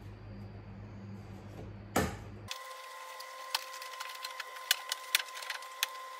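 Plastic clips of a Range Rover Sport's tailgate trim strip cracking and clicking as the strip is pried loose: a single loud rustle about two seconds in, then a run of sharp irregular clicks and snaps for the last three seconds over a faint steady high tone.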